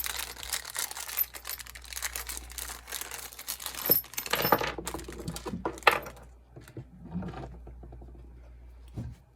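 Packaging rustling and small parts of a tap rebuild kit clicking as they are handled. It is dense for about the first four seconds, then thins to scattered clicks.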